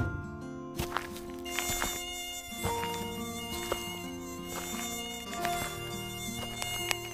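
Mosquitoes whining in flight: a steady buzzing hum of several tones that shift in pitch now and then, with a few light clicks.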